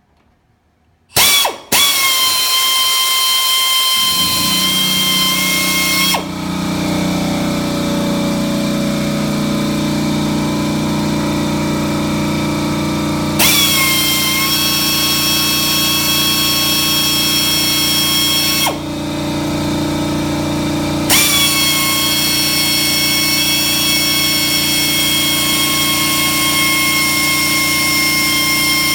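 Pneumatic air drill whining at high speed in three long runs, drilling out pull rivets. An air compressor starts about four seconds in and runs steadily underneath.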